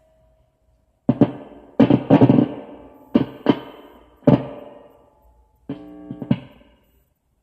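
Electric guitar played in separate strummed chords, each struck and left to ring out and fade before the next, with short gaps between. A faint single note sounds at the start, and near the end one chord is held under a few quick stabs.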